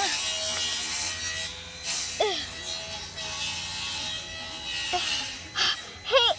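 Long grass and clover rustling close to the microphone as a hand pushes a small plastic toy through it, with a few short pitched chirps and a wavering tone just at the end.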